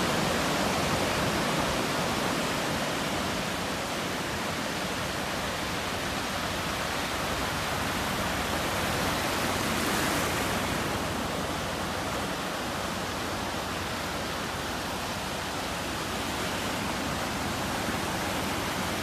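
Steady rushing hiss of surf and wind at the water's edge, swelling slightly about ten seconds in.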